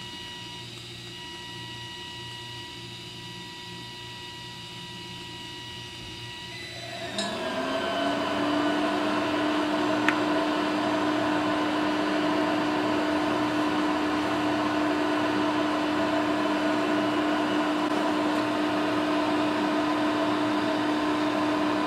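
TIG welder running an arc on steel square tubing: a steady hum with a few high steady tones. About seven seconds in it gets much louder, a hum rising briefly in pitch and then holding steady under a steady hiss.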